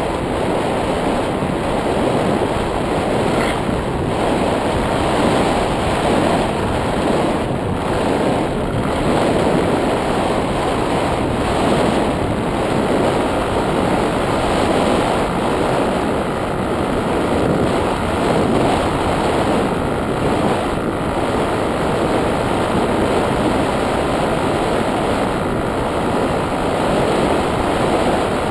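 Steady rushing of airflow on the microphone of a model paraglider in flight, with a faint steady hum joining about halfway through.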